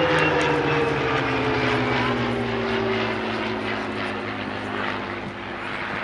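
A three-ship formation of WWII V-12 piston fighters (Packard Merlin P-51 Mustang, Allison P-40 Warhawk and Rolls-Royce Merlin Spitfire) flying past. Their combined engine note falls steadily in pitch and then levels off, slowly fading as they move away.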